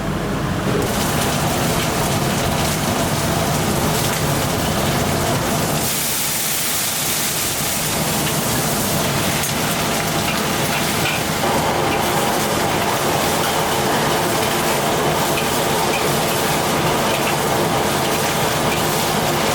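Steady hissing kitchen noise of cooking, with a brighter, higher hiss rising for a couple of seconds about six seconds in, and a fuller sound from just past the middle.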